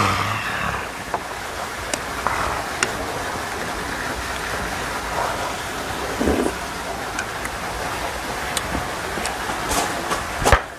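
Steady rain falling, an even hiss throughout, with a brief falling vocal sound at the very start and a few light clicks, one sharper near the end.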